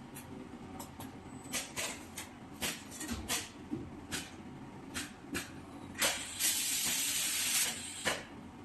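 Automatic laser welding machine welding diamond segments onto a core drill bit: sharp snaps from the laser pulses at irregular intervals over a low machine hum, with a steady hiss lasting under two seconds about six seconds in.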